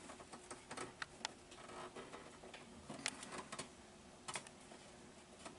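Faint, scattered small clicks and taps of hands handling a vacuum door-lock valve and its rubber hoses inside a car door.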